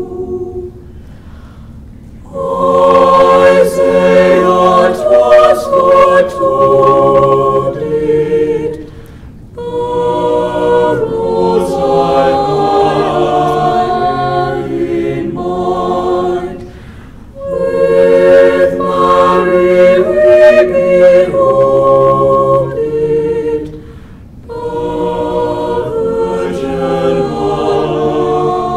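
Mixed high school choir singing a cappella in long, slow phrases, with a short breath between phrases about every seven seconds.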